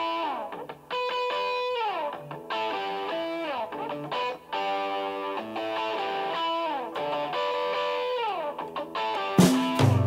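Solo electric guitar playing a repeating riff of short phrases, each ending in a downward slide. About nine and a half seconds in, the drums and bass come in loudly with the full rock band.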